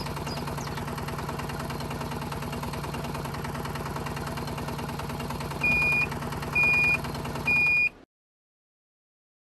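A small motor on a DIY mini tractor runs steadily with a fast, even pulse, like a small engine idling. Three short, high, level beeps come at even spacing near the end, and then everything cuts off abruptly.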